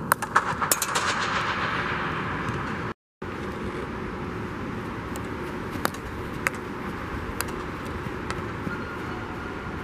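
Field hockey stick tapping the ball in sharp clicks while dribbling: a quick run of taps in the first second, then single taps about once a second, over a steady hiss of background noise. The sound cuts out briefly about three seconds in.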